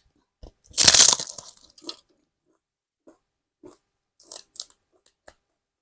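Close-miked crunchy chewing of crisp food: a loud crunching bite about a second in, then a run of shorter, softer crunches.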